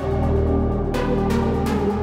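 Background electronic music: sustained synth chords with a steady beat of short percussive hits.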